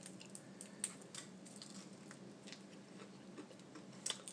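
Faint chewing and mouth sounds of a person eating: soft clicks at irregular spacing, over a low steady hum.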